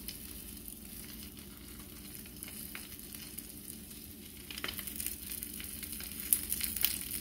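Egg and cheese omelette softly sizzling in a frying pan over a low gas flame, a steady hiss with a faint low hum beneath. There are a few faint taps about four and a half and six seconds in.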